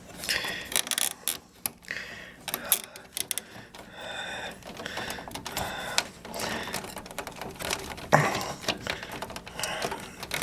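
Irregular clicks, taps and rattles of metal and plastic as a stubborn CPU heatsink retention clip is worked loose inside a computer case.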